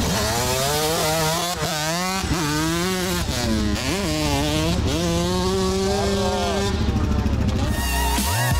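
Dirt bike engine revving hard as it pulls away, its pitch climbing and dropping several times as it accelerates through the gears, then holding a steady note for a moment. Music comes in near the end.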